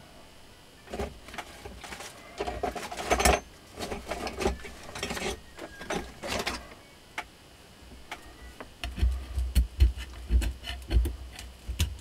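Handling noise from a washing-machine motor armature being turned and worked by hand on a workbench: irregular scrapes and rustles, then a run of low knocks and sharp clicks over the last few seconds.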